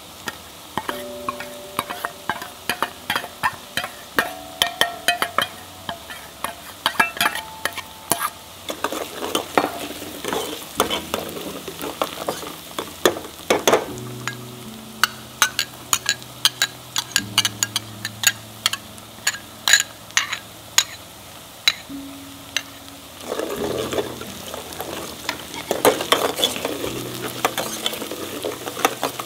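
Chopped onion, garlic and ginger sizzling in oil in a pot while a spoon stirs them, clicking and scraping against the pot many times a second; the mixture is being sautéed toward golden brown. The sizzle grows louder about three quarters of the way through.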